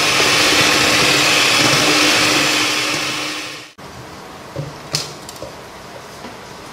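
Electric hand mixer running steadily, its beaters churning cake batter in a stainless steel bowl. It winds down and stops a little past halfway, followed by a few light knocks.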